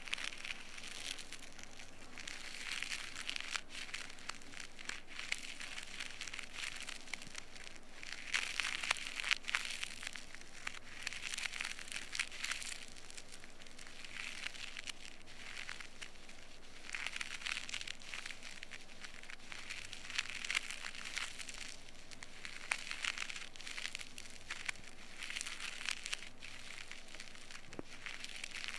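An ear pick scraping earwax inside an ear canal, heard close up as crackly scratching strokes that come back every two to three seconds.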